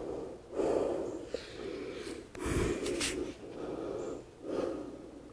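A woman breathing slowly and audibly through a held yoga stretch, about three or four long breaths.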